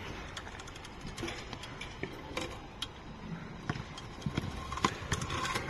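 Freestyle scooter rolling over pavement, with scattered sharp clicks and knocks and a louder knock near the end, during a trick attempt.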